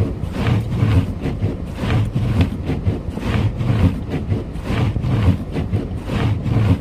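Car driving through a snowstorm, heard inside the cabin: a steady low rumble of engine, tyres and wind, with a regular swish about twice a second from the windshield wipers running fast to clear the heavy snow.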